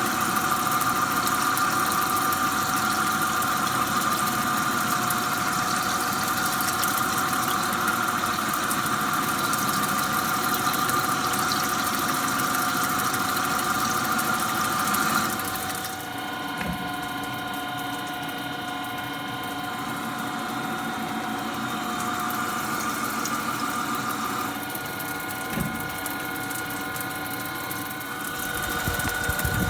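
Machine tool running while machining a turbocharger part: a steady whine over a hiss. About halfway through, the hiss drops away and the machine runs on more quietly.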